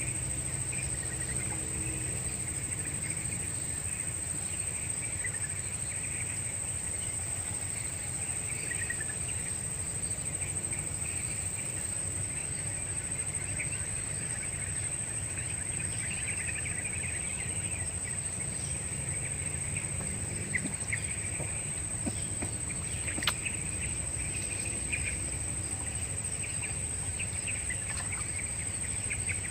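Swamp-side ambience: a steady high insect drone, like crickets, with scattered bird chirps over a low outdoor rumble and a single sharp click about three-quarters of the way through.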